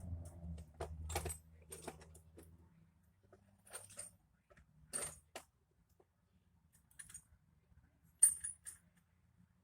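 Metal hand tools clinking and rattling against each other while being rummaged through: scattered sharp metallic clinks, the loudest one about eight seconds in.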